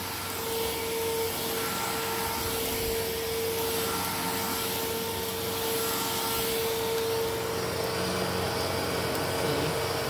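Hoover Fusion cordless stick vacuum with a 50-watt powered brush head running steadily over carpet. Its motor holds one steady tone over the rush of air.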